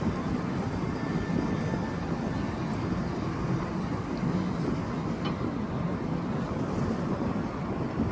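Steady low rumble of an amphibious tour bus's engine as it cruises through the water, mixed with wind on the microphone.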